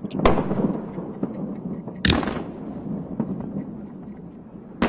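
Explosion of a SpaceX Starship (Ship 36) heard from a distance: a sharp bang just after the start, another about two seconds in and a short crack near the end, with crackling rumble throughout.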